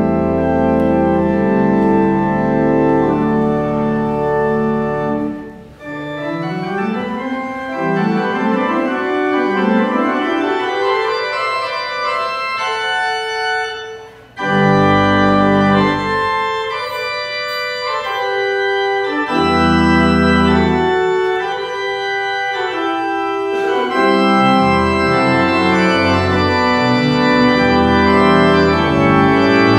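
Church organ playing: full sustained chords over deep pedal bass notes, with quick rising runs of notes in the middle and two brief breaks in the sound, about six and fourteen seconds in.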